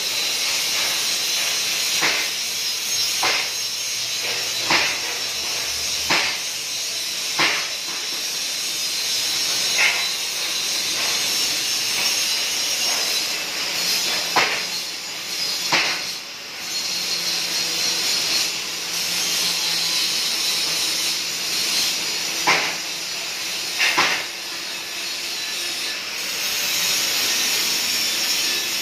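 DC TIG welding arc on 16 mm stainless steel plate, from a KorWeld 350 A TIG welder: a steady hiss, broken by a sharp crack every second or two, fewer and further apart in the second half.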